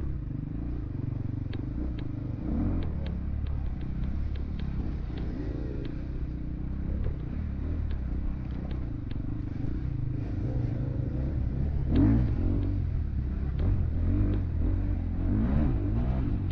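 Honda XR400 four-stroke single-cylinder dirt bike engine running under constantly changing throttle as the bike is ridden off-road, with a brief louder rev about twelve seconds in. Light, scattered ticks of clatter run over it.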